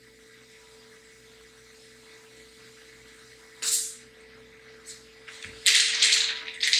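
Clear plastic piping bag rustling as it is squeezed and handled: a short burst a little over halfway through, then a longer, louder stretch near the end, over a faint steady hum.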